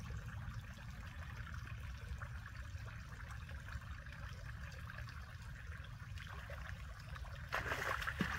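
A hooked bass splashing and thrashing at the pond surface for under a second, about seven and a half seconds in, the loudest sound here. Before it, only a steady hiss and low rumble.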